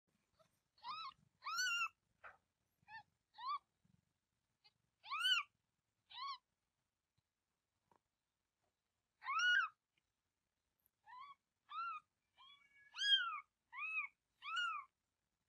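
Newborn kitten mewing: about fourteen short, high cries, each rising and falling in pitch, in two clusters with a pause of a few seconds between them.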